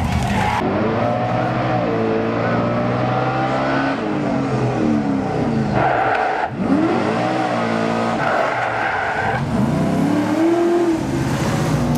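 Engine of a fire drill team's motorized racing rig revving hard as it runs down the track, its pitch climbing and falling several times.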